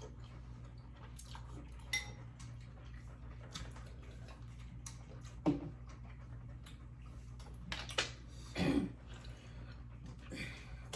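Utensils clinking and scraping against plates and bowls during a meal, with a few louder short knocks and eating noises, over a steady low hum.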